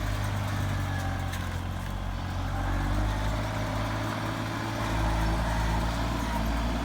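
Tractor engine running steadily, a deep even hum.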